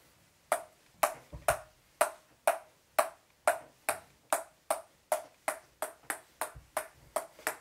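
Table tennis ball bounced again and again on a paddle held flat, making light, sharp clicks about two a second that slowly quicken.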